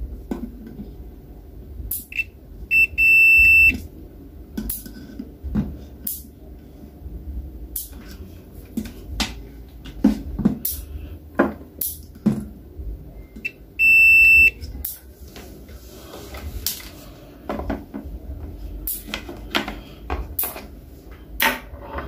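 Multimeter continuity beeper sounding as the test probes touch the electric kettle's base contacts, signalling a closed circuit. A couple of short chirps come just before a held beep about three seconds in, and a second held beep comes around fourteen seconds. In between are light clicks and knocks from the probes and the handled plastic and metal parts.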